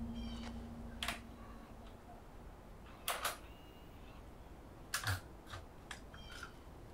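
Camcorder's cassette compartment being opened and a tape cassette lifted out: a handful of sharp plastic clicks and snaps, the loudest about three seconds in and about five seconds in, with smaller ticks after.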